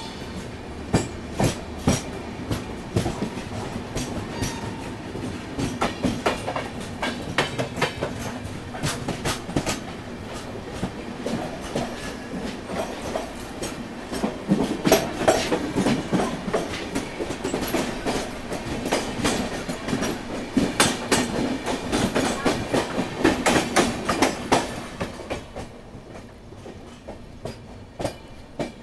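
Two passenger trains passing close side by side: a dense, uneven clatter of wheels over rail joints and the rush of the Sinhagad Express's coaches going by, heard from an open coach door. The clatter thins out and quietens near the end as the other train clears.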